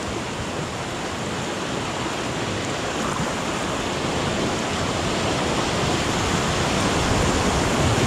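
Whitewater rapids rushing around an inflatable river raft: a steady dense rush of churning water that grows gradually louder as the raft runs down into the rapid.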